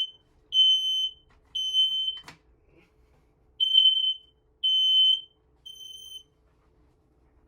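Smoke alarm sounding the temporal-three pattern: two sets of three high-pitched beeps with a pause between them, the last beep weaker. It has been set off by air freshener sprayed into the sensor. A single sharp click falls between the two sets.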